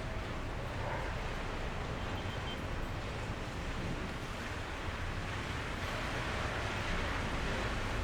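Steady rain, an even hiss that swells slightly about two thirds of the way through.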